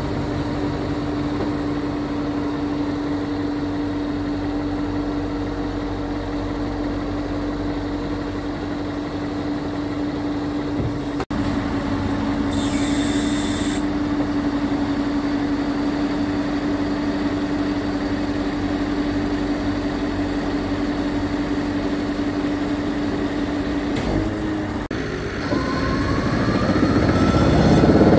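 Scania R580's V8 engine running with the JOAB hook-lift's hydraulics working, giving a steady hum with a held tone as the hook arm moves. A short hiss sounds about twelve seconds in, and near the end a rising whine grows louder.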